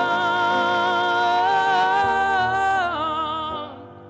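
Live song with piano accompaniment: a singer holds one long note with vibrato. The pitch steps up about one and a half seconds in, falls back near three seconds, and the voice then fades out.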